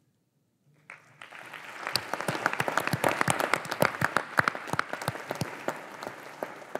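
Large audience applauding: the clapping starts about a second in, builds to full strength, then thins out near the end.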